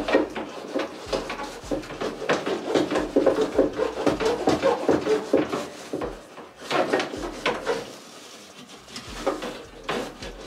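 A flexible dryer vent brush scraping and knocking inside a clothes dryer's lint trap slot: a quick run of scratchy rubs and small plastic clicks. It thins out after about six seconds, with a few more knocks near the end.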